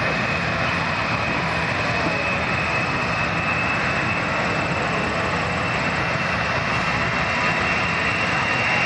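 Boeing C-17 Globemaster III's four turbofan jet engines running at high power, a steady, dense jet noise with a high whine, from an aircraft taking off.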